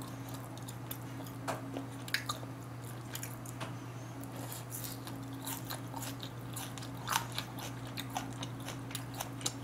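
A person chewing and biting food close to the microphone: soft crunching and wet mouth clicks at irregular moments, over a steady low electrical hum.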